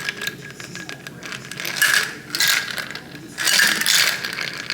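Ice cubes rattling and clattering in irregular bursts, about one every second, while margaritas are being mixed.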